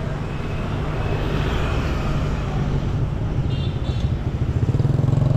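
Street traffic with motor scooter engines going by; one scooter passes close and its engine grows louder near the end.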